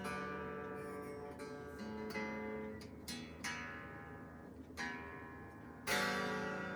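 Guitar strings picked one note at a time, each note ringing on, with a strummed chord about six seconds in.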